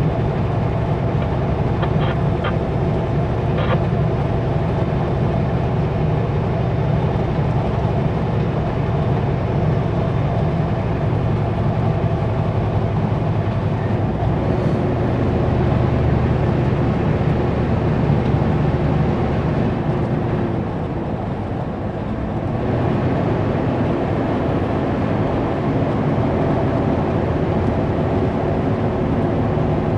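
Kenworth W900L semi truck's diesel engine running at highway speed, with steady road noise. A few faint clicks come in the first few seconds, and the drone dips briefly about twenty seconds in before picking back up.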